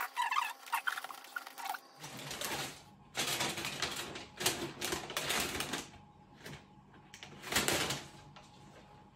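Scissors snipping through twine, then wrapping paper crinkling and tearing as a gift is unwrapped: a long stretch of rustling from about three seconds in, and two shorter rustles near the end.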